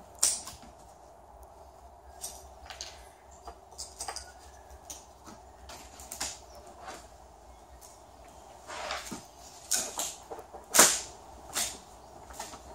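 Fibreglass mould flange being worked free from the plug along its edge: irregular short cracks, clicks and scrapes, one sharp one just after the start and a louder cluster near the end.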